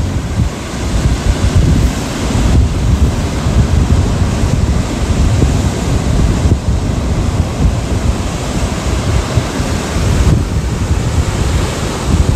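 Wind buffeting the microphone over the steady wash of sea surf, with the low rumble rising and falling.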